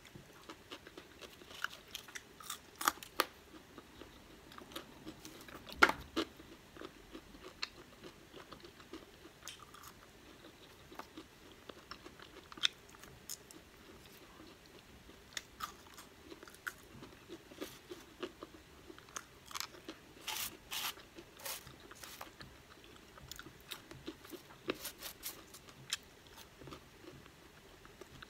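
Close-up chewing and crunching of crinkle-cut fries eaten by hand, with irregular crisp crunches and mouth clicks, the loudest about six seconds in.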